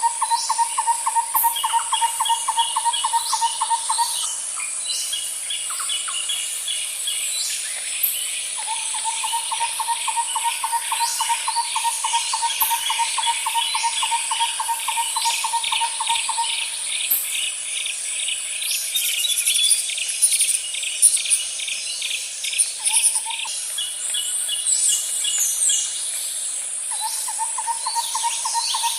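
Natural outdoor chorus: a low trill at one steady pitch repeats in long runs several seconds each, over rapid, higher insect-like chirping and a steady high-pitched drone.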